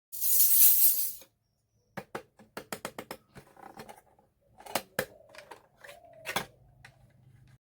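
A brief rush of noise lasting about a second, then a run of small, sharp clicks and taps with a few short squeaks as hard plastic pieces of a miniature toy kitchen set are handled and set down.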